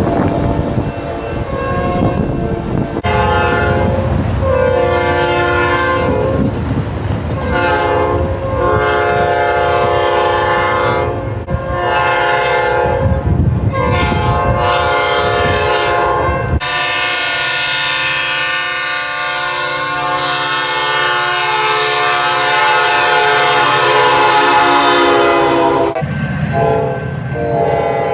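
Diesel locomotive's multi-chime air horn sounding a series of blasts over the rumble of the passing train, then one long, brighter blast.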